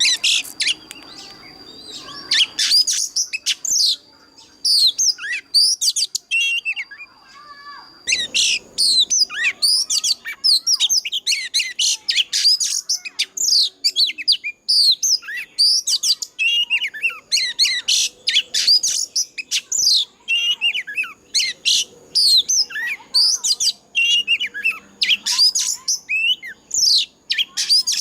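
Oriental magpie-robin singing a rapid, varied song of whistles and chattering notes, sparser at first and nearly continuous from about eight seconds in. A steady high tone sounds behind it for the first eight seconds.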